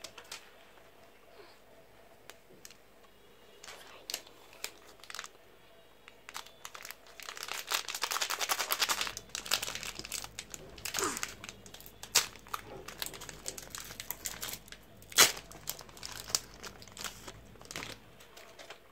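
Candy bar wrapper being opened by hand: scattered light crackles, then a dense stretch of crinkling and tearing about halfway through, followed by more rustling and a single sharp snap about three-quarters of the way in.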